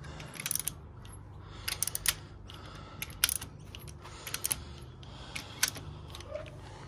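Socket ratchet clicking in about five short runs as the cylinder liner bank's hold-down bolts are snugged down, done up only lightly so the liner gaskets are not yet compressed. A steady low hum runs underneath.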